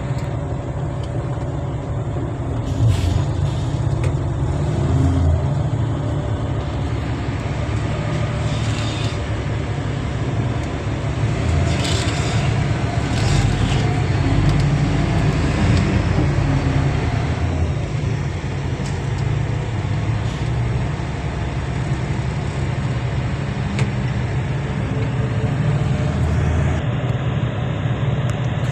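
Heavy mining equipment's diesel engine running steadily at close range, a continuous deep drone. A few brief hissing rushes rise over it, the loudest about twelve to fourteen seconds in.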